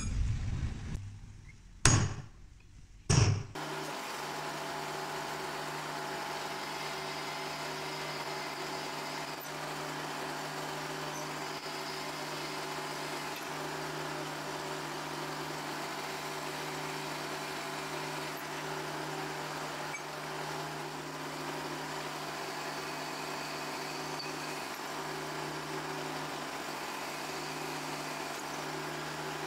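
Two sharp knocks of steel pieces, then, from about three and a half seconds in, a drill press running with a steady hum as its twist bit bores through steel angle clamped in a vise.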